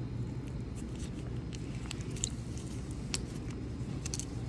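Mayonnaise squeezed from a plastic sachet onto kimbap: soft squishing with a few sharp crinkles and clicks from the sachet and foil wrapper. A steady low hum runs under it.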